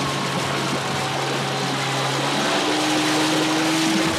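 Motorboat engine running steadily while towing a water-skier, over the hiss of spray; about two and a half seconds in, the engine note changes and a higher tone climbs slowly.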